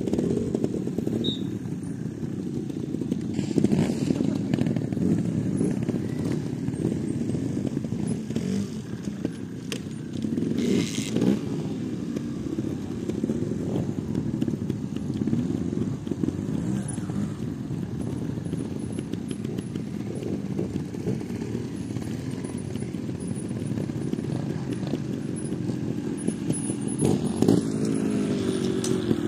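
Several trials motorcycle engines idling and being blipped, a steady mixed engine rumble. Near the end one bike revs up as it rides onto the rocks.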